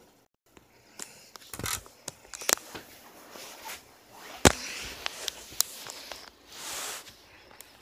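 Rustling and scraping on fabric with scattered sharp clicks, the loudest a sharp knock about four and a half seconds in, and a longer rustle near the end.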